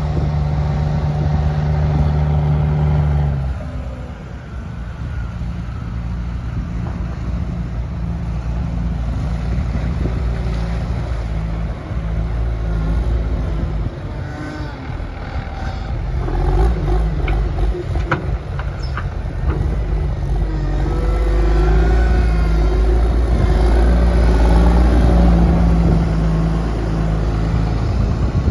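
Huddig 1260 B backhoe loader's diesel engine running as the machine drives, its note changing with the throttle and growing louder as it comes close. A few sharp clanks about two-thirds of the way through.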